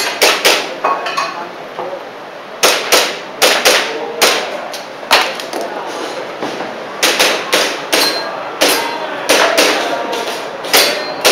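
Airsoft pistol shots fired in quick strings of two to several sharp cracks, some followed by a faint ringing.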